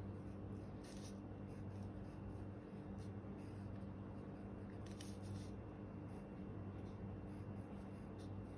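Pencil writing on paper: faint, irregular scratchy strokes over a steady low hum.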